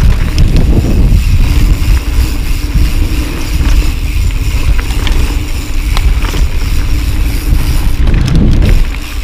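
Wind buffeting the microphone over the rolling noise of a full-suspension mountain bike descending a dirt trail at speed, with a few short clicks and rattles from the bike.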